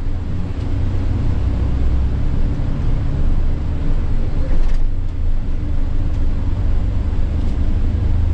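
Scania coach's diesel engine and road noise as the bus drives on, a steady low rumble.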